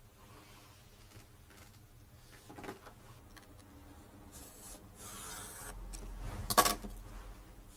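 A cloth rubbing over a lacquered wooden part, wiping off excess lacquer before gilding. There are quiet scattered handling ticks, a short rush of rubbing about two-thirds through, and one sharp knock near the end.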